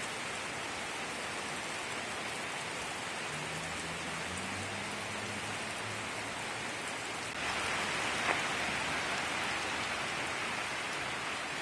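Heavy rain pouring down in a cloudburst, a steady hiss on wet pavement and leaves. It grows a little louder about seven seconds in, with a single click soon after.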